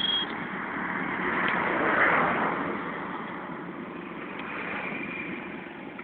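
Road vehicle noise: a steady rushing engine-and-tyre sound that swells to its loudest about two seconds in, then fades away.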